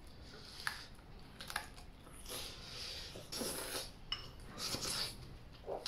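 Chopsticks clicking against a porcelain rice bowl a few times, with soft chewing and mouth noises in between as someone eats.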